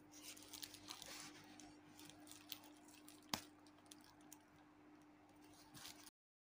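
Faint crinkling and clicking of plastic packaging as a shrink-wrapped phone box is handled on bubble wrap, with one sharp click a little past the middle and a steady low hum underneath. The sound cuts off abruptly just before the end.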